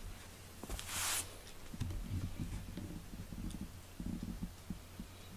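Soft rustling, scuffing and light bumps as a cat tussles with a plush toy on a foam play mat, with one brief, louder rustle about a second in.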